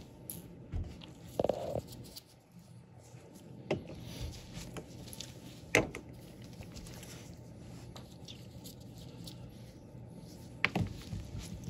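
A few scattered light clicks and knocks over quiet room tone, the sharpest about six seconds in and another near the end.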